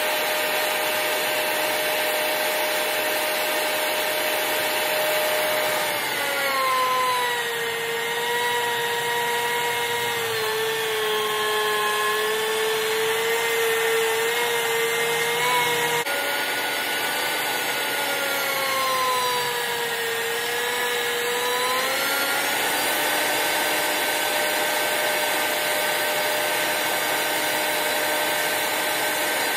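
Portable thickness planer running with a steady motor whine while planing a wooden post. Twice the pitch sags as the cutterhead takes the load of the cut, then climbs back.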